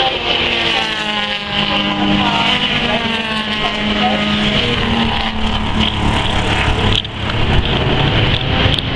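Classic race cars running hard on a circuit, among them a six-cylinder Holden Torana XU-1, with engine notes rising and falling as they accelerate and change gear. The sound is briefly quieter about seven seconds in.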